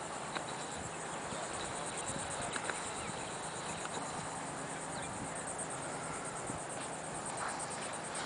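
Steady outdoor background hiss with a faint, high, fast-pulsing insect trill.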